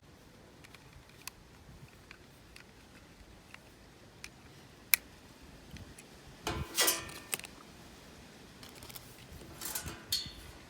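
Light scattered clicks and one sharper click, then two short scraping rustles in the second half: small plastic parts and packaging of an anti-snoring watch being handled during unboxing and assembly.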